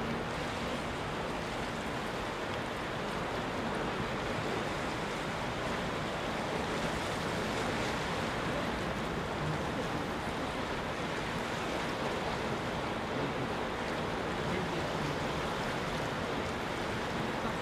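Sea waves washing steadily against a rocky shore, heard as an even, continuous rush of surf.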